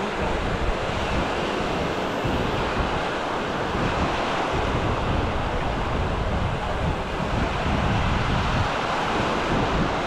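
Small surf breaking and washing onto a sandy beach as a steady rush, with wind buffeting the microphone in uneven low rumbles.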